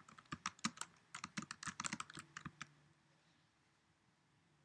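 Typing a short phrase on a computer keyboard: a quick run of keystrokes with a brief pause about a second in, stopping about three seconds in.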